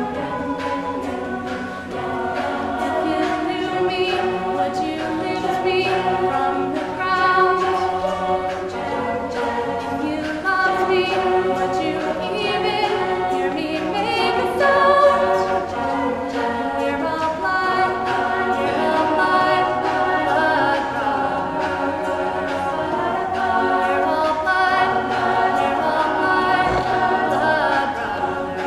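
Mixed a cappella group singing: a woman's solo voice leads over sustained backing harmonies sung by the rest of the group, with no instruments.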